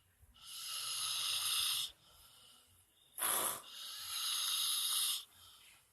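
A sleeping person snoring with a high, hissing wheeze on each breath: two long breaths of about a second and a half each, with a short, fuller breath between them about three seconds in.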